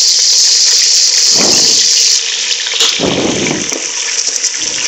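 Ground green chilli paste sizzling as it is spooned into hot oil with fried onions and spices: a loud, steady hiss, with two duller swells about a second and a half and three seconds in.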